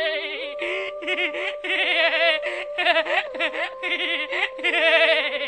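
Continuous high-pitched giggling laughter in quick rippling waves. Under it runs a thin steady tone that shifts pitch a few times.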